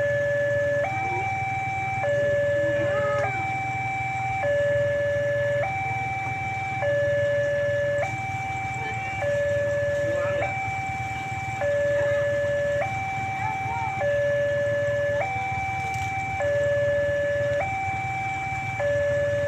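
Railway level-crossing warning siren sounding a steady two-tone alternation, a lower and a higher tone each held a little over a second, warning that a train is approaching.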